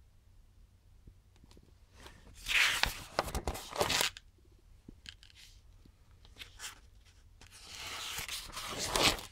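Paper pages of a comb-bound manual being turned: two rustling page turns, one about two seconds in and one near the end, with a few faint clicks between.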